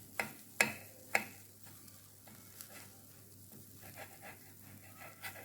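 A knife cutting a Korean rolled omelette into slices: three sharp knocks within the first second or so, then faint light clicks.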